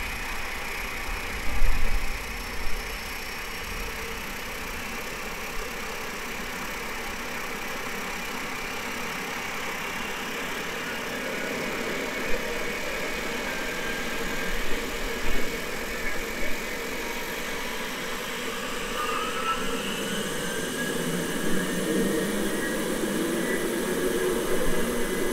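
Recorded jet engine sound effect played through small Bluetooth speakers mounted on a light aircraft: a steady whining rush, with a whine rising in pitch like a turbine spooling up from about 19 seconds in. A few sharp knocks about two seconds in are the loudest moments.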